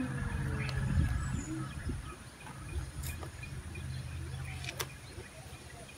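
A low steady drone, like a distant motor, that fades out about five seconds in, with a faint thin high whine and a few light clicks of dry jackfruit leaves being handled and pierced with a stick.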